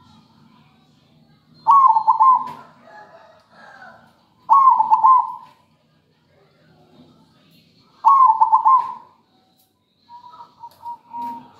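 Zebra dove (perkutut) cooing: three loud phrases of quick trilled coos a few seconds apart, then a fainter long steady note near the end.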